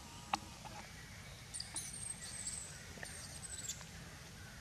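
High-pitched animal squeals in the trees: two thin, drawn-out squeaks, each about a second long, between one and four seconds in. A sharp click sounds about a third of a second in, over a low steady rumble.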